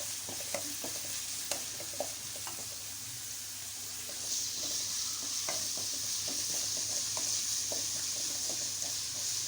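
Chopped vegetables (carrot, beans, capsicum, cabbage) sizzling in hot oil in a pan as they are stirred, with a spoon clicking and scraping against the pan. The sizzle grows louder about four seconds in.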